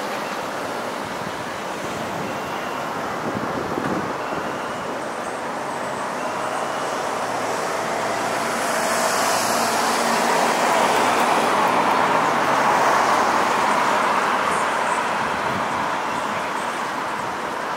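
City street traffic noise, a steady hum of passing vehicles that swells louder as a vehicle goes by about halfway through, then fades.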